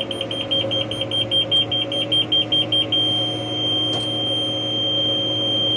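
Round baler monitor alarm in the tractor cab: a high electronic tone beeping rapidly, about five beeps a second, that turns into one steady tone about three seconds in, the signal that the bale chamber is filling and then full. The tractor engine hums steadily underneath.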